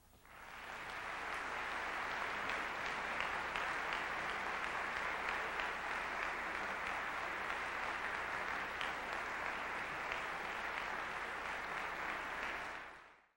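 Audience applauding: the applause builds over the first second, holds steady, and cuts off suddenly near the end.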